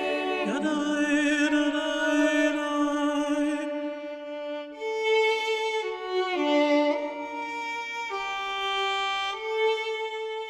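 Slow background music: a bowed string melody of long held notes with vibrato, moving on to a series of changing notes from about halfway.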